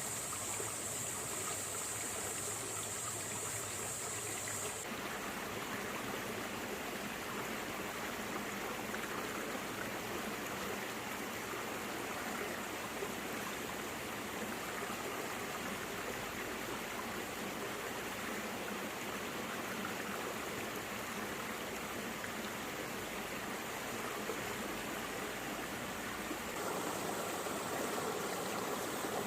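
Stream water rushing and babbling over rocks and stones, a steady even wash. Its tone shifts abruptly about five seconds in and again near the end.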